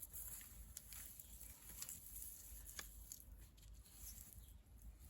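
Near silence: faint hiss with a few scattered soft ticks and rustles.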